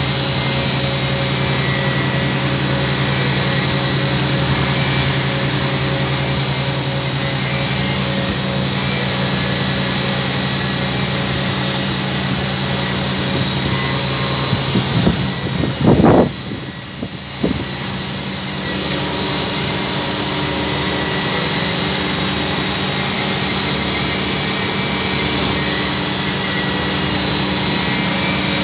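CNC vertical machining centre running: a steady mechanical hum with a high whine over it. About halfway through there is a brief loud rumble, after which the steady running continues.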